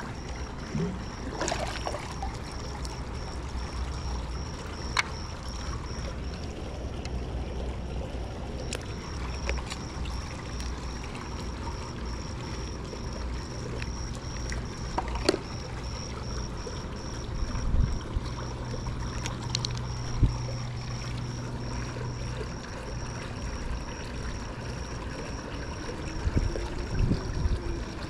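Pool water trickling and flowing over a steady low mechanical hum, with a few light knocks.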